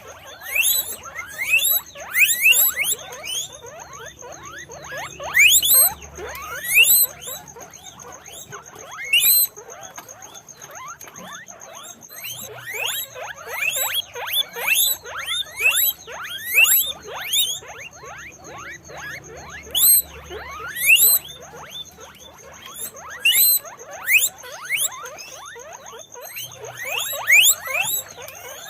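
Guinea pigs wheeking: rapid runs of short, high squeaks, each rising in pitch, coming in clusters with brief lulls between.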